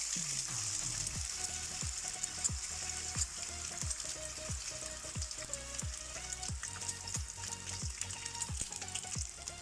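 Two eggs frying in hot vegetable oil in a wok, a steady sizzle, under a regular low thump about every 0.7 seconds.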